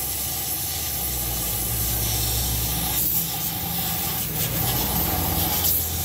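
Steam cleaner jetting steam with a steady hiss onto a carbon-caked intake manifold, blasting off the diesel soot sludge during an EGR cleaning. A steady low hum runs underneath from about a second in.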